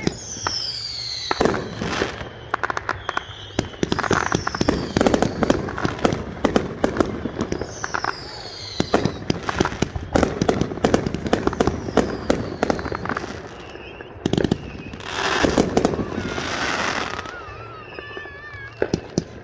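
Fireworks going off: a steady run of sharp bangs and crackling, with high whistles falling in pitch several times. A rushing hiss comes about three quarters of the way through, and warbling whistles follow near the end.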